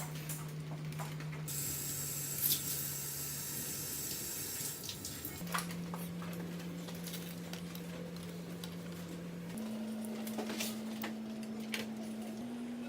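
Water running for a few seconds, with light clinks of dishes and utensils, over a low steady hum that steps up in pitch several times.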